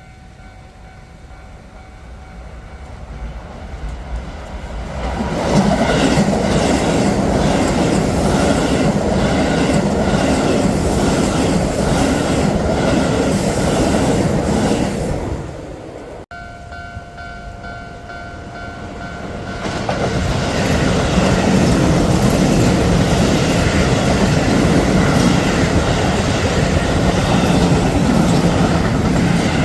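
Keio Line commuter trains passing a level crossing. One train runs by for about ten seconds; after a cut, a second train approaches and passes near the end. A level-crossing warning bell's steady tones sound underneath.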